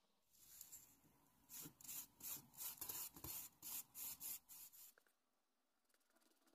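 Flat bristle brush scrubbing wood stain onto a basswood sheet in quick back-and-forth strokes, about three a second, stopping about five seconds in.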